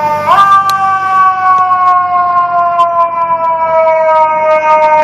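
Fire engine's mechanical siren, pushed up in pitch briefly just after the start and then slowly winding down.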